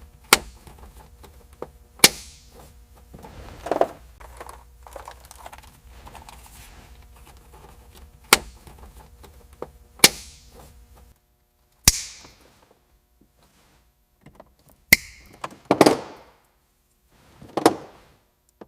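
A series of sharp thunks and clicks, about eight of them spaced a second or two apart, some with a short ring after, over a faint low hum that stops about eleven seconds in.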